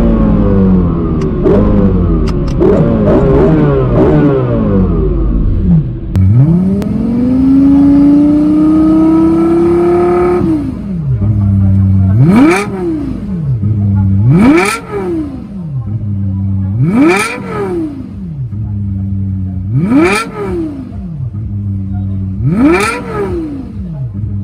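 Lexus LFA's 4.8-litre V10 accelerating hard, its pitch falling and rising with gear changes. Then comes a long climb in revs that cuts off about ten seconds in. After that the car sits idling and is revved five times, each blip shooting up and dropping straight back to idle.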